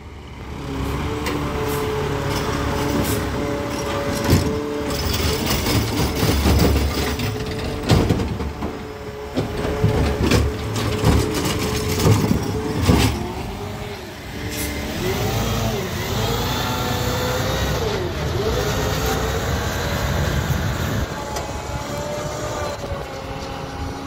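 Peterbilt 520 garbage truck running alongside, with its McNeilus ZR automated side-loader arm working a curbside cart. There are several sharp bangs from about a third to halfway through, and a whining tone that wavers up and down in pitch later on.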